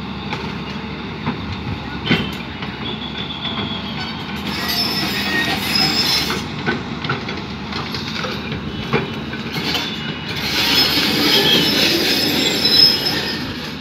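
Hyundai crawler excavator running as its boom works into a tree, with scattered knocks and two stretches of high metallic squealing, one about four seconds in and a longer one from about ten seconds to near the end.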